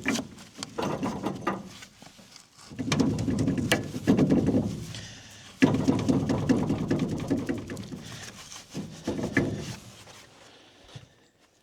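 Metal clanking, clicking and rattling in several bursts of a few seconds each, from hooking the head up to a combine.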